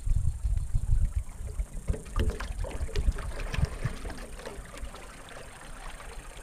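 Wind buffeting the microphone in low gusts, then from about two seconds in a spell of water lapping and splashing against the rocky bank, fading off.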